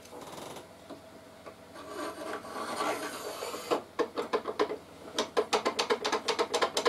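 Aluminium mitre gauge bar worked back and forth in the mitre slot of a DeWalt DW745 table saw's top: first a scraping slide, then rapid rattling clicks. The rattle is the sign of the bar's play in the slot, about a millimetre either side.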